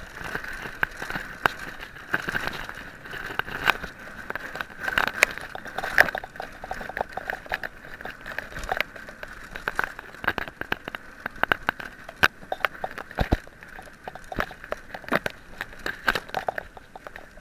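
Mountain bike rattling and clattering over a rough dirt trail, with frequent sharp clicks and knocks over a steady rushing noise.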